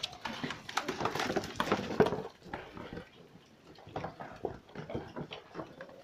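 Piglets feeding at plastic bowls of dry feed and moving about on concrete: a dense run of clicks and scuffling from snouts in the bowls and small trotters, with grunting, busiest in the first two seconds or so and then thinner.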